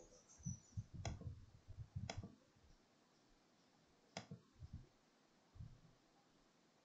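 Three computer mouse clicks, the first two a second apart and the third about two seconds later, over near-silent room tone with a few faint low knocks.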